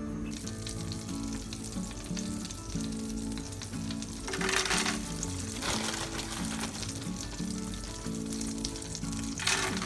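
Butter sizzling as it melts in a hot pan, a steady frying hiss that flares up louder twice, about four and a half seconds in and near the end.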